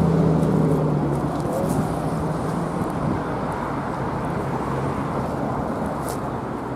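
A car engine running, its steady hum fading after the first second or so. Then an even low rumble of engine and road noise slowly grows quieter.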